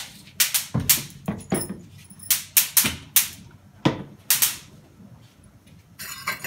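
Steel kitchen utensils clinking and knocking: about a dozen sharp clicks at uneven intervals, each with a short metallic ring, then a brief hiss near the end.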